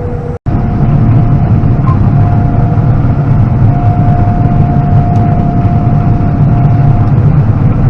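A large diesel engine and its machinery running steadily under load: a constant low drone with a thin steady whine above it, starting just after a brief cut near the start.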